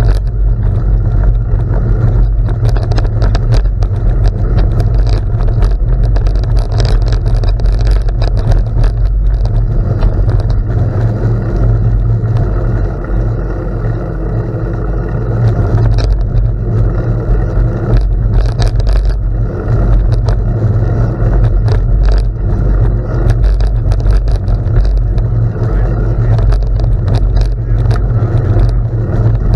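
Bicycle riding on a gravel road: a heavy steady rumble of wind buffeting the microphone, with the gritty crunch of tyres on gravel and many irregular rattling clicks.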